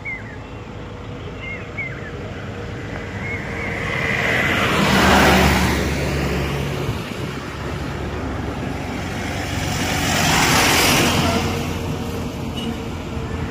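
Steady car road and engine noise, with two vehicles passing by, the first about five seconds in and the second near ten seconds, each swelling up and fading away.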